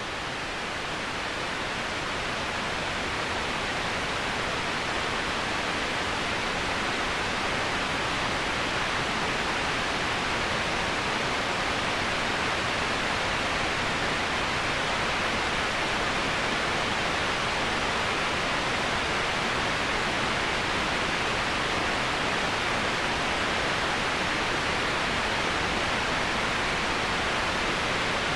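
Waterfall rushing, a steady dense roar of falling water that fades in over the first few seconds and then holds even.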